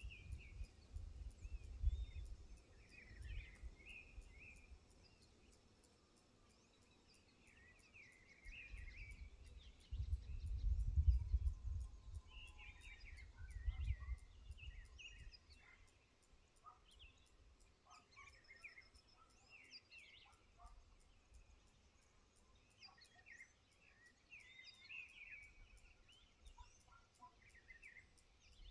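Wild birds chirping and trilling in short, scattered calls, several at once. A low rumble comes and goes twice, strongest about ten to fourteen seconds in.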